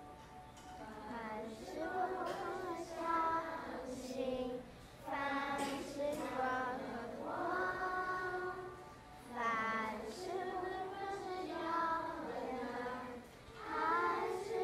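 A class of first-grade children singing together in unison, in sung phrases separated by brief pauses.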